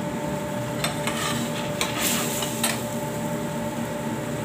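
Metal spoon clinking and scraping against a steel frying pan as a sauce is stirred: about five sharp clinks in the first two to three seconds, over a steady background hum.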